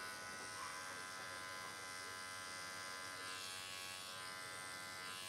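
Electric dog grooming clipper fitted with a #40 blade, running with a steady hum as it clips the short hair close on a Shih Tzu's face.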